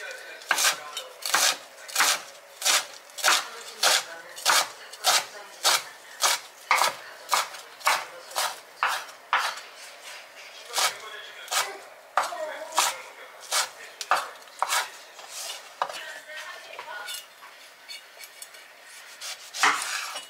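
Chef's knife chopping fresh dill, parsley and mint on a bamboo cutting board: crisp, even knocks about two a second, thinning out and softening after about twelve seconds.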